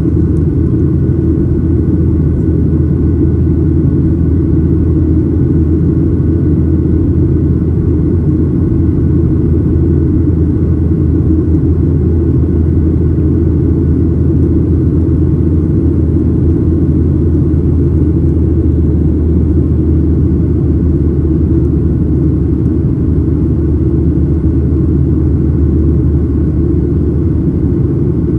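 Boeing 737-900ER cabin noise heard from a window seat aft of the wing: the CFM56-7B turbofans and airflow give a loud, steady, deep rumble with a faint high whine above it.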